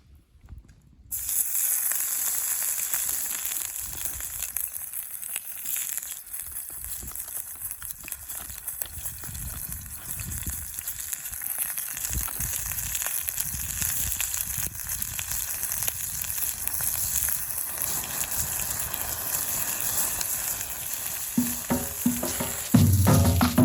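Food sizzling steadily in a frying pan over a campfire, starting abruptly about a second in. Rhythmic background music with drums comes in near the end.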